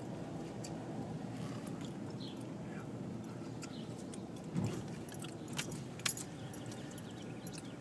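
Steady low rumble of a car rolling slowly, heard from inside the cabin, with a soft bump a little past halfway and a few light metallic clicks and jingles in the second half.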